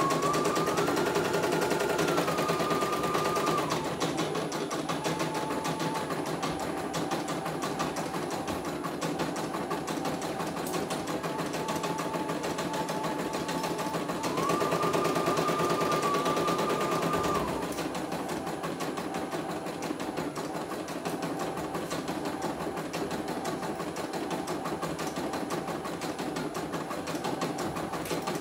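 CNY computerized embroidery machine stitching a test design: rapid, even needle strokes over a motor whine. The whine steps up in pitch and gets louder for a few seconds at the start and again about halfway through, then settles back to a lower, steady run.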